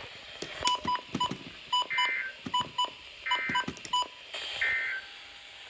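End-of-message data tones from a NOAA Weather Radio broadcast: three short warbling EAS data bursts a little over a second apart. Quick high electronic beeps chirp in between them.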